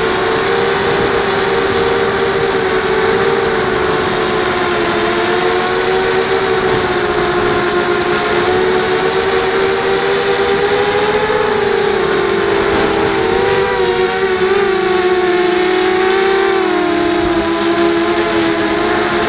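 Brushless electric motors and propellers of a small FPV racing drone whining in flight, recorded by the drone's own onboard camera. Several close tones waver up and down in pitch as the throttle changes, most in the second half, over a steady rush of air.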